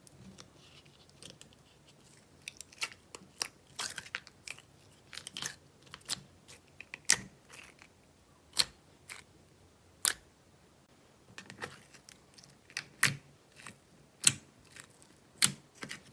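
Clear glitter slime being pressed and squeezed by hand, giving irregular sharp pops and crackles of trapped air, one to several a second.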